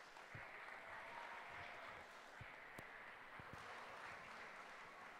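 Faint applause from a large audience, many hands clapping steadily.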